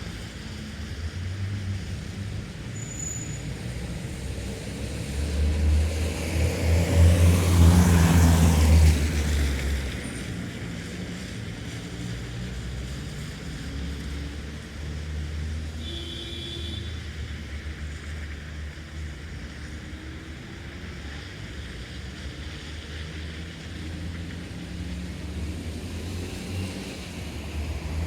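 Road traffic on a wet road: a steady rumble of engines and the hiss of tyres on wet asphalt. One vehicle passes close about a third of the way in, swelling and fading, the loudest moment.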